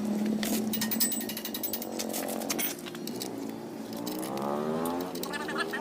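Yamaha RX-King two-stroke single-cylinder engine with a bleyer-spec racing exhaust, running at a steady speed and then revving up with a rising pitch in the last couple of seconds.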